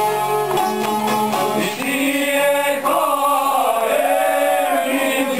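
Men singing a traditional folk song together, held notes that bend and slide, with long-necked plucked lutes accompanying.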